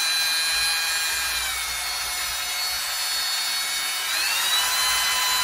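Cordless drill running, spinning a cell cleaning brush inside the measuring cell of a Deckma OMD-24 oil content meter: a steady motor whine that drops slightly in pitch about a second and a half in and rises back again about four seconds in.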